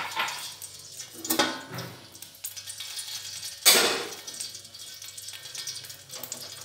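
Clatter of a steel cooking pot and metal utensils: three knocks with a short ring after each, the loudest a little under four seconds in, over a faint hiss.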